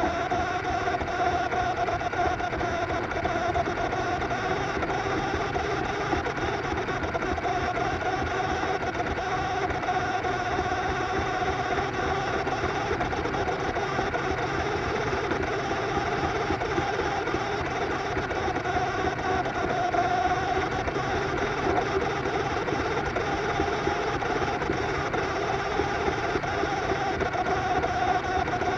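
Hobby-grade radio-control car's electric motor and gearbox running steadily with a whine, driven from a 3S LiPo through an ESC rated only for 2S.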